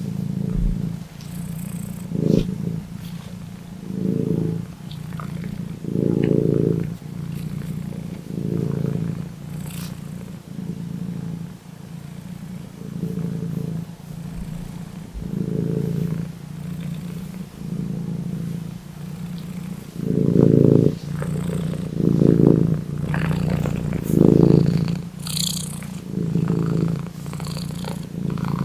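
Domestic cat purring steadily, the purr swelling louder and fading about every two seconds as the cat breathes in and out.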